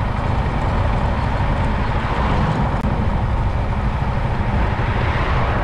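A motorcycle riding at speed, heard from a camera mounted low on the bike: a steady rush of wind buffeting the microphone, mixed with road and engine noise.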